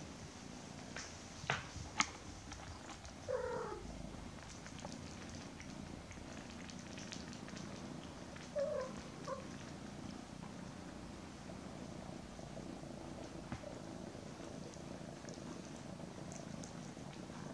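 Domestic cats purring steadily, a mother cat with her kittens. Two sharp clicks come in the first two seconds, a brief meow-like call about three seconds in, and two short chirps a little before the middle.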